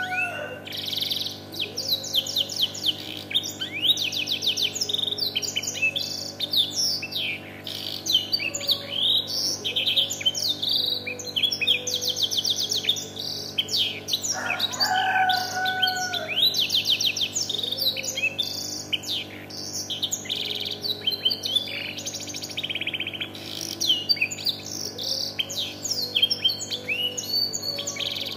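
Domestic canary singing a long, unbroken song of rapid trills and chirps, filled with black-throated canary (blackthroat) phrases learned from a tutor bird. A lower, drawn-out call cuts in briefly about halfway through.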